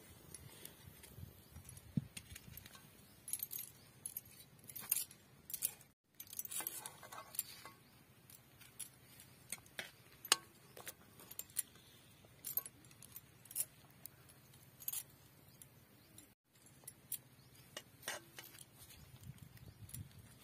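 Metal spatula clinking and scraping against a kadai and a steel plate while fried whole brinjals are lifted out of the oil. The clinks are sharp and irregular.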